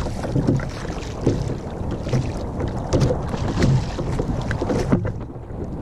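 Wind rumbling on the microphone, with repeated short splashes as a hooked fish thrashes at the water's surface beside the kayak.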